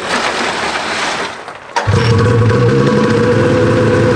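Snowmobile skis and track scraping and crunching over gravel as the sled is dragged, then about two seconds in the sled's turbocharged 800 two-stroke twin starts abruptly and settles into a steady idle.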